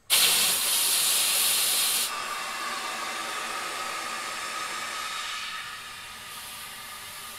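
Compressed air hissing through an air chuck into the inner tube of a tube-type tire as it is inflated. A loud hiss starts suddenly, then after about two seconds drops to a quieter hiss with a faint steady whistle that slowly fades.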